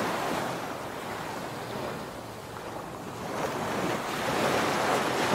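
Ocean surf washing in, a steady rushing noise that eases a little about two seconds in and swells again near the end.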